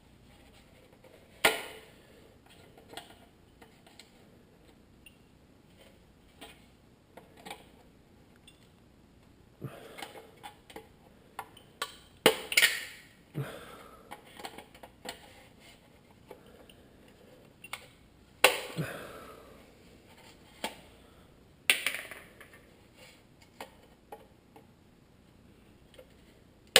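Hand tools knocking and scraping on a plastic headlight housing: scattered sharp knocks and clicks, a few of them loud and followed by a short scrape.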